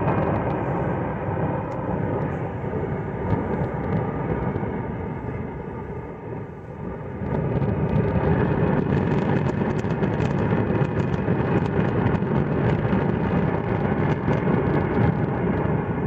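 Steady, deep roar and rumble of the Cumbre Vieja volcano erupting, dipping briefly about six seconds in and then coming back louder.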